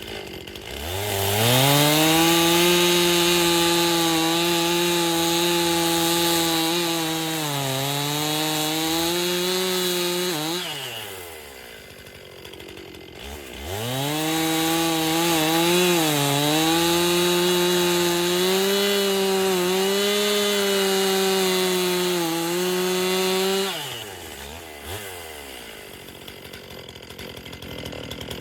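Stihl two-stroke chainsaw revved to full throttle twice, each time held for about ten seconds. The pitch sags briefly as the chain bites into wood, and the saw drops back to idle between the runs and near the end.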